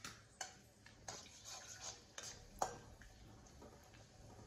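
Whole spices (cinnamon, cloves, cardamom) being stirred with a metal spoon in hot oil in a stainless steel kadai. A faint sizzle runs under a few sharp clicks of the spoon against the pan.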